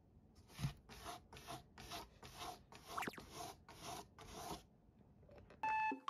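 Cat scratching the cardboard of a box: a run of about a dozen even rasping strokes, roughly three a second, stopping short of five seconds in.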